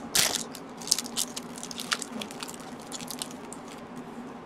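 Crinkling and crackling of a foil Magic: The Gathering booster pack wrapper being torn open and handled, in irregular sharp bursts.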